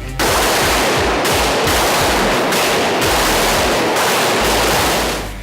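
Several handguns firing at once along a firing line: a rapid, overlapping string of shots that starts just after the beginning and stops about five seconds in.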